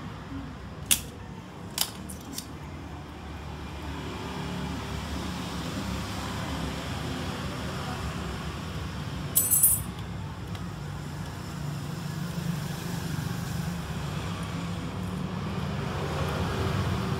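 Small metal objects clinking on a workbench: four sharp clicks, starting about a second in, and a brief metallic jingle about halfway through. A steady low hum runs underneath.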